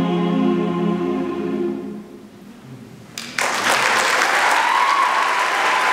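Mixed choir holding the final chord of a slow spiritual, which dies away into the church's reverberation about two seconds in. A little over three seconds in, the audience starts applauding.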